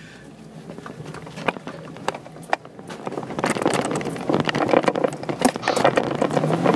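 Jeep Wrangler crawling up a steep rock and dirt ledge: the engine runs low and steady under load while the tyres crunch and scrabble over rock and loose dirt, with many sharp knocks. The noise builds from about halfway as the climb steepens.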